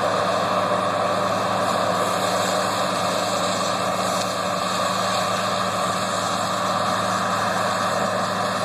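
Combine harvester running steadily: a constant engine hum over dense mechanical noise.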